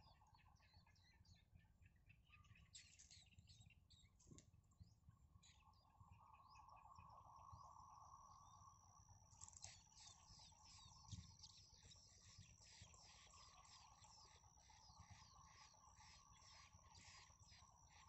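Faint, high begging chirps of nestlings calling as a parent bird feeds them, scattered at first, then a quick run of about three chirps a second from about halfway through. A thin steady high tone runs beneath the later part.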